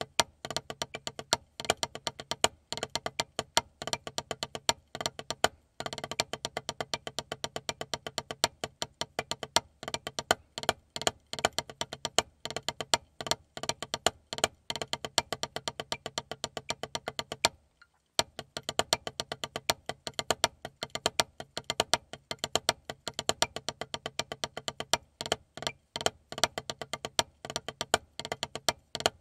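Wooden drumsticks playing a fast rudimental snare-drum solo on a rubber practice pad: a dense run of quick, dry taps with louder accented strokes, broken by one short pause about two-thirds of the way through.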